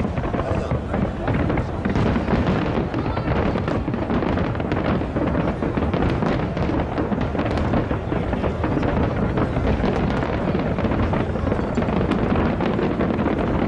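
Fireworks going off in a dense, continuous barrage: many overlapping bangs and crackles with no break.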